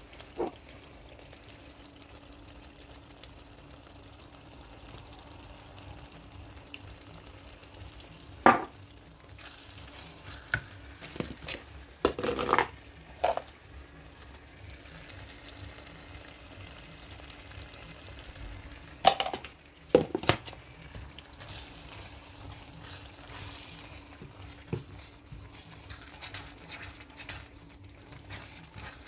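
Food sizzling as it fries in a pan while it is stirred, with a spoon or spatula knocking sharply against the pan a few times: once about eight seconds in, several times around twelve seconds, and twice around twenty seconds.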